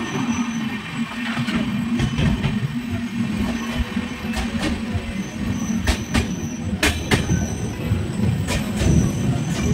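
Deccan Queen Express passenger train running through a tunnel: a loud, steady rumble of wheels and coaches, with several sharp clacks from the wheels on the track in the second half.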